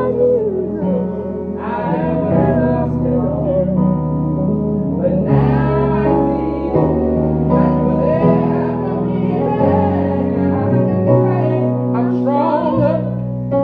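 Mixed group of men and women singing a gospel song together, over sustained low chords from an accompanying instrument.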